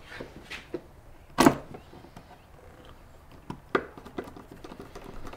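Utility knife blade scraping and clicking as it is worked in under a staple in a wooden board, with one sharp click about one and a half seconds in and a few lighter ticks later.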